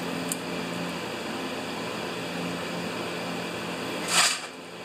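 Steady machine-like hum and hiss of the workshop room, with a faint click just after the start and a short, louder hiss about four seconds in.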